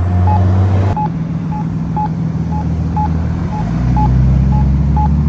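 Campbell accessible pedestrian signal push button sounding its locator tone, short even beeps about twice a second, over the louder low steady rumble of vehicle engines.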